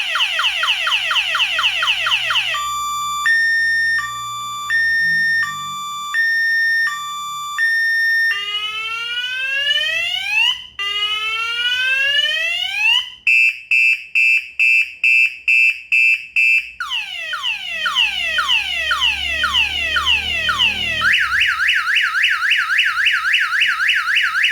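KM-628 (C-628) 12 V DC electronic alarm siren sounding loudly and stepping through its tone patterns. It opens with a fast falling chirp, then a two-tone hi-lo alternation, two slow rising wails, a rapid beeping pulse about three times a second, slower falling sweeps, and ends on the fast chirp again.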